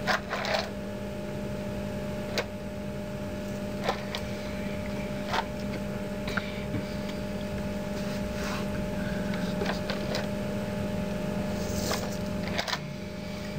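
A steady low hum with a few short, soft clicks and ticks scattered through it.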